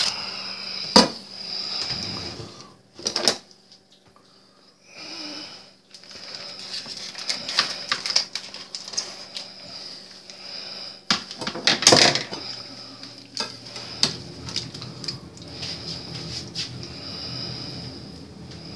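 Aluminium foil crinkling and rustling as it is handled and folded by hand, with a few sharp clicks and knocks, the loudest about a second in and again near the middle.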